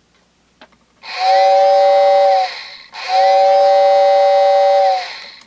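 Vintage Lionel whistle station's motor-driven impeller whistle blowing twice, a loud two-note chord. The first blast lasts about a second and a half, the second about two seconds; each swells in as the motor spins up and fades as it runs down. A faint click comes just before the first blast.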